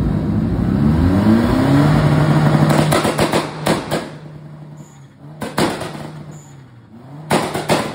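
First-generation Škoda Octavia RS's 1.8 turbo four-cylinder revved through its exhaust: the revs climb for about two seconds and hold, then drop back with a burst of exhaust pops and crackles, settling to idle before two short throttle blips, each followed by more crackles.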